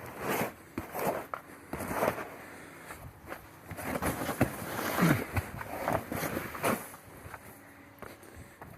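Irregular rustling, scraping and footsteps of artificial turf being handled and worked into place.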